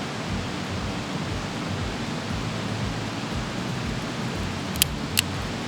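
Small campfire of kindling catching, with two sharp crackling pops about half a second apart near the end over a steady hiss.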